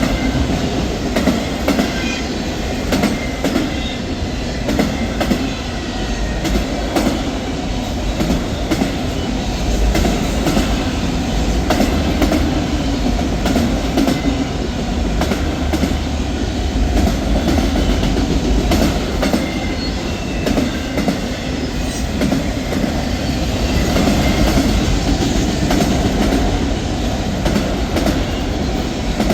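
A train rolling past at steady speed: a continuous heavy rumble of railcars with irregular clicking of wheels over rail joints.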